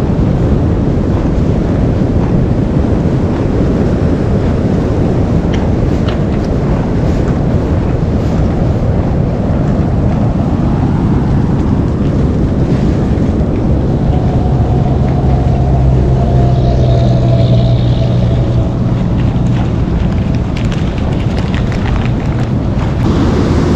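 Wind buffeting the microphone over the wash of sea surf. An engine hum comes in about halfway through and fades out near the end.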